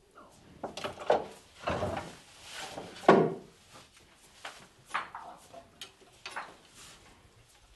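Irregular knocks, scrapes and clatter of hand tools working a small piece of wood and metal, the loudest knock about three seconds in.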